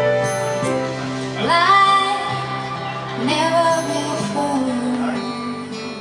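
A woman singing with her own grand piano accompaniment: two long sung notes with vibrato over held piano chords, the music growing quieter toward the end.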